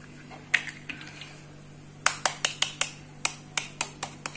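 A table knife tapping an eggshell again and again to crack it. There is one click about half a second in, then a quick run of sharp taps, about four or five a second, from about two seconds in.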